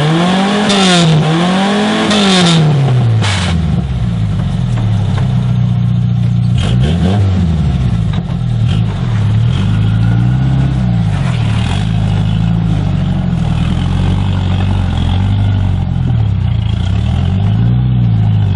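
Off-road rock crawler's engine revving in repeated short blips, each rising and falling in pitch, over a steady low engine drone as the rig works through an obstacle.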